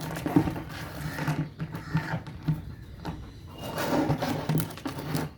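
A Rottweiler puppy at play, making irregular knocks, scrapes and scuffles.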